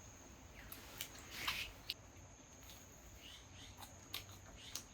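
Quiet summer outdoor ambience: insects trilling steadily at a high pitch, with a few light clicks and a short rustle about a second and a half in.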